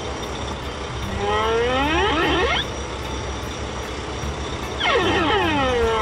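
Cartoon engine sound effect for a construction machine running steadily, with two falling-pitch sliding tones laid over it, one about a second in and one near the end.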